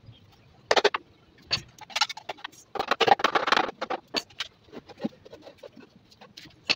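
Small hammer tapping nails into the joints of a white board shelf frame: irregular sharp knocks, with a quick run of taps about three seconds in.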